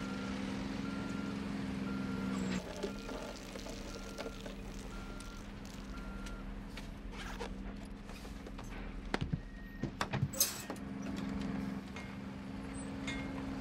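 Construction-site background with a heavy vehicle's engine running and its reversing alarm beeping about once a second. The beeping stops about six and a half seconds in. A few short knocks and rustles follow around nine to ten seconds in.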